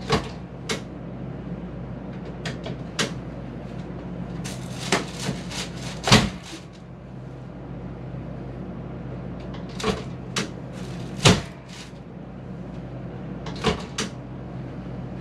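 Chiropractic drop table being handled and set: a string of sharp mechanical clicks and clunks at uneven intervals, loudest about six and eleven seconds in, over a steady low hum.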